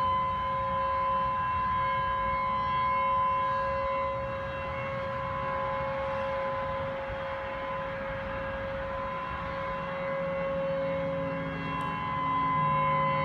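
A steady, unbroken horn-like drone held on one pitch, with overtones, over a low background rumble. Its source is unidentified.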